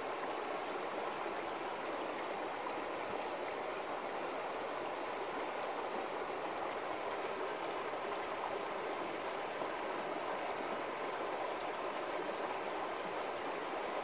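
Shallow river running over stones and gravel riffles: a steady babble of flowing water with no change in level.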